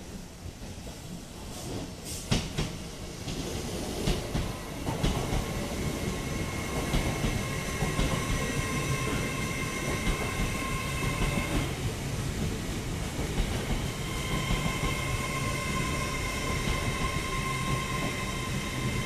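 TransPennine Express Class 802 train running into the station, its low rumble growing louder over the first few seconds, with wheel clacks over the rail joints early on. From about six seconds in, steady high-pitched tones ring over the rumble.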